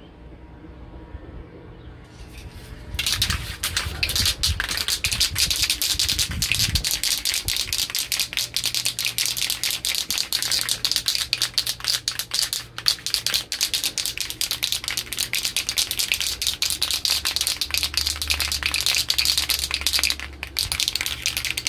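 Aerosol can of hydrographics activator being shaken hard, its mixing ball rattling fast and continuously. The rattling starts about three seconds in and breaks off briefly near the end.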